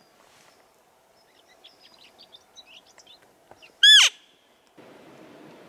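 Hand-held elk call blown once, a short loud cow-style mew that falls steeply in pitch, about four seconds in. Faint bird chirps come before it, and a steady hiss sets in near the end.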